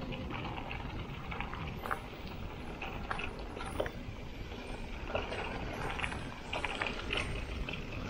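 Mountain bike riding over a dirt trail: a steady low rumble of wind and tyre noise on the action camera's microphone, with scattered rattles and clicks from the bike over bumps, more of them in the second half.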